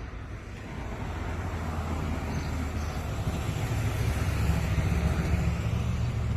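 A motor vehicle driving past on the street, its engine rumble and tyre noise growing louder over the first few seconds and staying loud.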